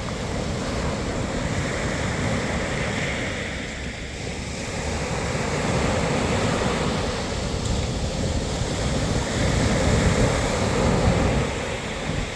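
Sea waves breaking and washing up the shore in a steady wash of surf. It swells twice, the second surge near the end being the loudest.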